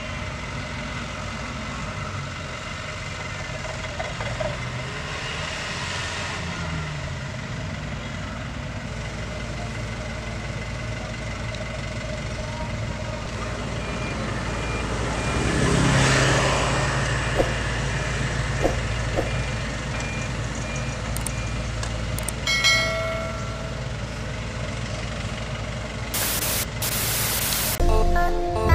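Diesel engines of a long-reach excavator and a dump truck running steadily, swelling louder about halfway through, with a faint repeated reversing beep in the background. Music starts right at the end.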